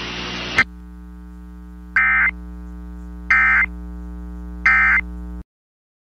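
Emergency Alert System end-of-message data bursts over FM radio: three short, harsh digital warbles about 1.3 s apart, over a steady low hum. A hiss of static before them ends with a click about half a second in, and the audio cuts out just before the end.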